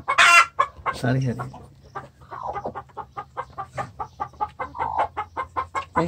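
Village hens clucking: a loud squawk at the start, then a quick, even run of short clucks, about five a second.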